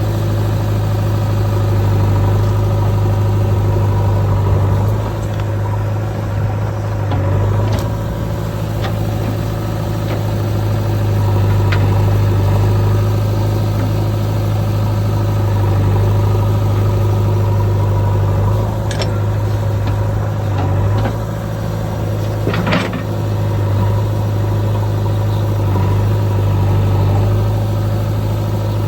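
Diesel engine running steadily at idle, a deep even hum, with a few sharp knocks through it, the loudest about three-quarters of the way in.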